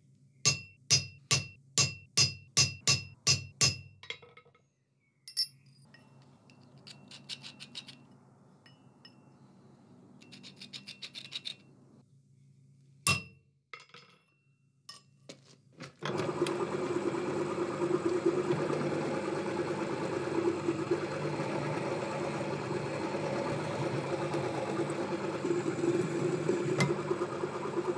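A hammer striking a punch on steel bars on an anvil: about nine ringing blows in quick succession. Then a few light metal clinks and scrapes and a single ringing hammer blow on a steel ring on the anvil horn. From about halfway on, a pillar drill runs steadily, drilling a forged steel ring held in a vice.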